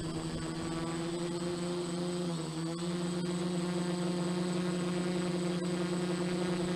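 F450 quadcopter's motors and propellers buzzing steadily in flight, with a brief dip and wobble in pitch about two and a half seconds in before settling again.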